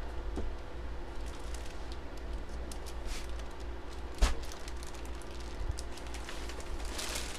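Faint handling noises, light rustles and clicks, with one sharp knock about four seconds in and a short rustle near the end, over a steady low hum.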